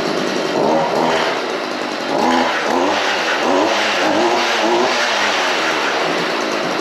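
Stihl FS 55R string trimmer's small two-stroke engine running, its revs rising and falling several times.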